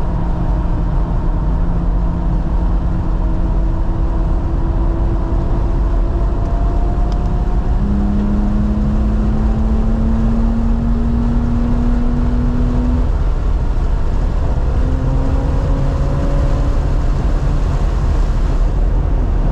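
2018 BMW M3 Competition's twin-turbo inline-six pulling under load, heard from inside the cabin over a heavy road and wind rumble. Its pitch climbs slowly, steps up about eight seconds in, and climbs again.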